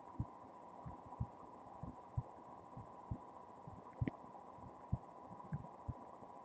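Heartbeat picked up by a microphone pressed against the chest: dull low thumps about once a second, over a faint steady electrical hum.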